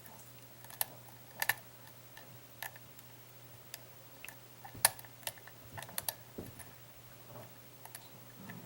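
Scattered small clicks and taps of metal lock-picking tools working a pin-tumbler lock, at irregular intervals, the loudest just before five seconds in.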